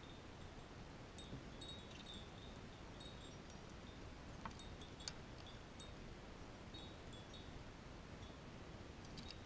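Faint, high tinkling chime tones, scattered irregularly, with two sharp clicks about halfway through.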